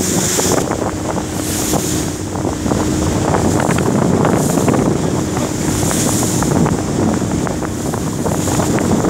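Jet boat running at speed on a river: a steady engine drone under wind buffeting the microphone and water rushing past the hull.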